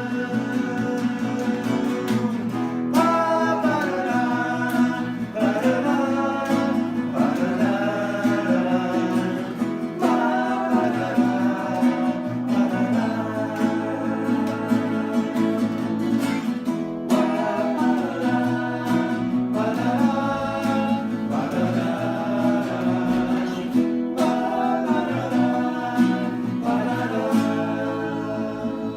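Music: a sung melody over plucked acoustic string chords.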